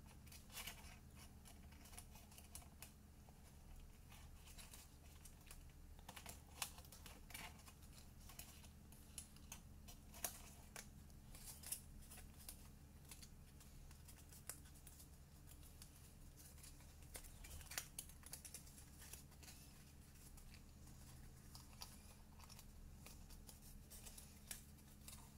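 Near silence. Faint, scattered taps and rustles of paper being handled as glued tabs are pressed down one by one, over a low steady hum.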